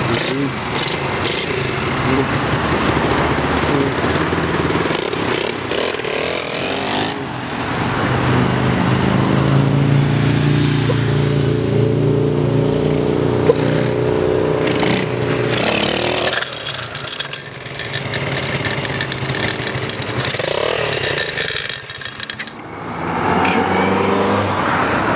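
125cc single-cylinder pit bike engine with a makeshift exhaust running and revving as the bike is ridden, its pitch rising and falling with the throttle.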